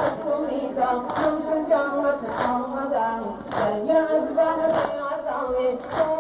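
Nawha mourning chant sung with held, wavering notes over a crowd's unison chest-beating (sineh-zani): flat-handed blows on bare chests land together about once every 1.2 seconds, five times in all.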